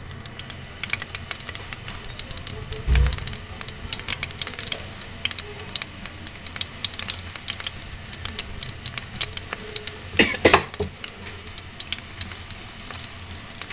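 Breadcrumb-coated bread rolls shallow-frying in oil on a low flame, with a steady fine sizzle and crackle. A dull thump comes about three seconds in, and a few sharp knocks come near ten seconds.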